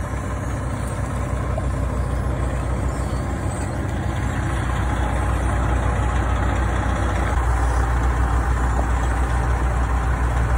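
Steady drone of heavy road-paving machinery running, an asphalt paver with a dump truck beside it, growing a little louder after the middle.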